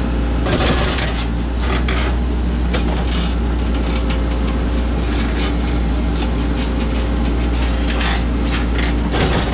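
Caterpillar 432E backhoe loader's diesel engine running steadily, heard from inside the cab, with irregular scraping and rattling as the backhoe bucket digs into the soil.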